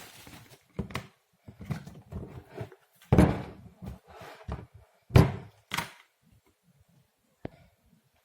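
Irregular knocks and clicks of hands working on an open Dell laptop during a RAM swap, with two louder thunks about three and five seconds in and a single sharp click near the end.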